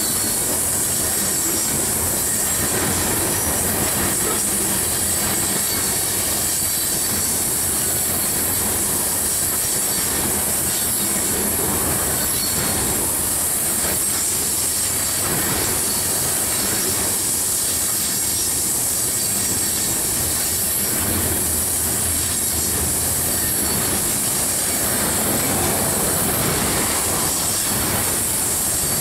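Coal train's cars rolling past on a curve: a steady rumble of steel wheels on rail under a continuous high-pitched flange squeal, with a clack of wheels over rail joints now and then.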